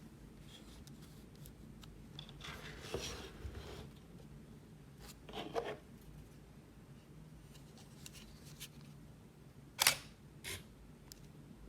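Digital SLR camera shutter firing: a sharp double click about ten seconds in, after some softer handling rustle earlier on.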